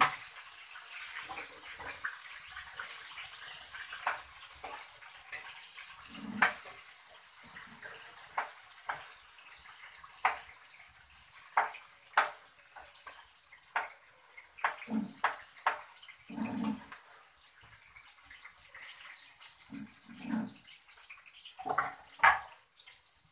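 Kitchen work: water running at a sink while a vegetable is rinsed, with scattered sharp clicks and clanks of utensils and cookware and knocks on a cutting board. The running-water hiss thins out as the clicks take over.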